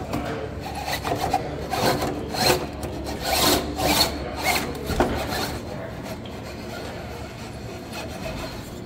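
RC rock crawler scraping and grinding over rock and wood. Irregular rasping bursts come over the first five seconds, then it goes steadier and quieter.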